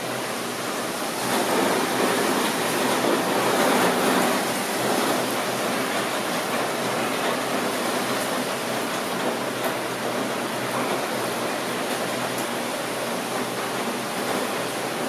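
Steady rain falling, a continuous even hiss with a few faint drop ticks. It swells slightly for a few seconds near the start.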